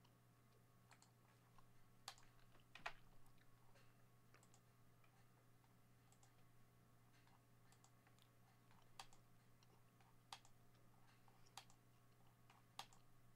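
Faint computer clicks, scattered one to a few seconds apart, as a list randomizer is run repeatedly. A steady low electrical hum lies underneath.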